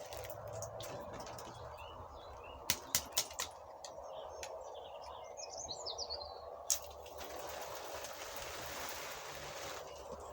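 A few sharp clicks of handling, then a hiss of water spraying through a headlight washer jet for about three seconds, cutting off suddenly; the jet is not badly blocked. Birds chirp briefly in the middle.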